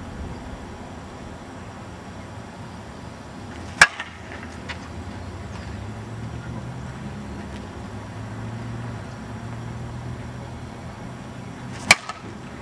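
Two sharp pings of a prototype slowpitch softball bat hitting a pitched ball, about eight seconds apart, each followed closely by a fainter click.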